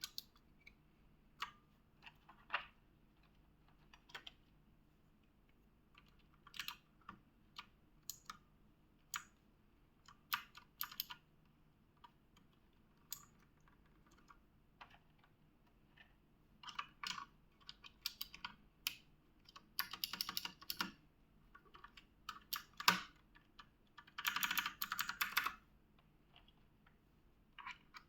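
Mechanical keyboard keys clicking under presses: scattered single clicks, with quick flurries of rapid key presses about twenty seconds in and again a few seconds later.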